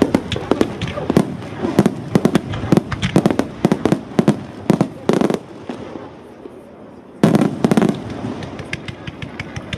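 Fireworks display: aerial shells bursting in rapid, irregular bangs and crackles. There is a brief lull after about five and a half seconds, then a loud cluster of bangs about seven seconds in.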